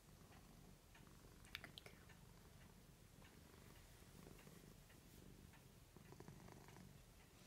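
Tortoiseshell cat purring, a faint, steady low rumble, with a few soft clicks about a second and a half in.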